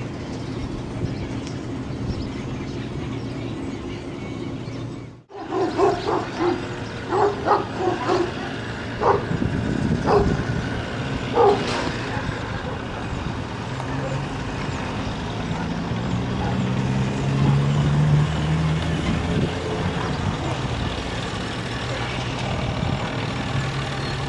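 EMD GT22 diesel locomotive approaching slowly with a steady engine drone that swells in the last third. A dog barks in short, irregular bursts between about six and twelve seconds in.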